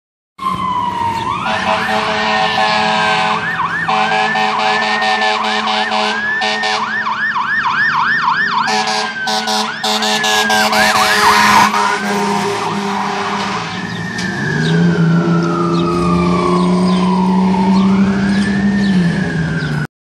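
Fire truck siren cycling through a fast up-and-down yelp, then a long slow wail that falls and rises again near the end. In the second half a long steady low horn note sounds over it.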